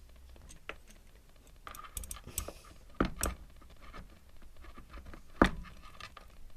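Sharp plastic clicks and knocks as a small white plastic part is handled and pushed into place inside the dryer's cabinet. There is a cluster of light clicks, two firmer knocks around the middle, and the loudest knock near the end.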